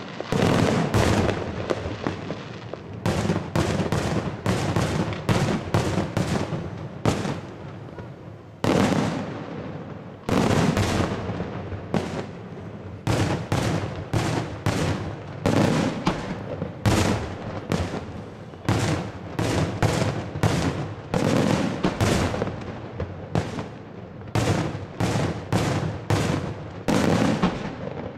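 Daytime fireworks: aerial salute shells bursting in a rapid, irregular series of loud bangs, often several a second, each with an echoing tail.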